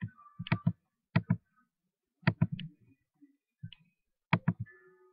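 Clicks of a computer's pointer button: about a dozen sharp clicks, mostly in quick twos and threes.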